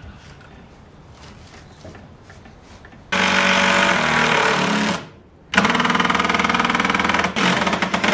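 A handheld power tool running in two long bursts. It starts suddenly about three seconds in and stops briefly near the middle. A fast rattle sits under a steady motor tone.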